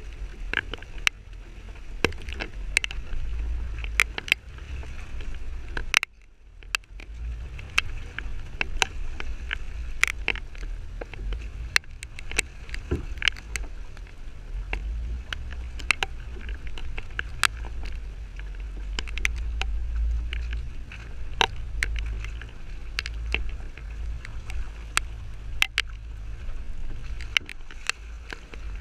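Jeep driving off-road: a steady low engine and drivetrain rumble with frequent irregular knocks and clicks as the vehicle works over rough trail, with a brief break about six seconds in.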